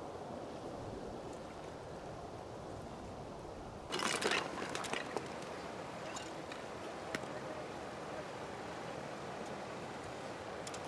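Steady outdoor water hiss, then about four seconds in a short loud burst of handling noise, followed by scattered sharp clicks as a knife blade works against the shells of large freshwater mussels on wet concrete.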